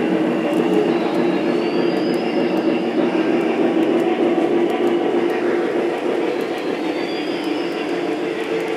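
Model freight train rolling past on layout track: a steady rumbling whir of wheels and motor hum, with light ticking from the wheels on the rails. A faint high squeal rises twice, about a second in and near the end.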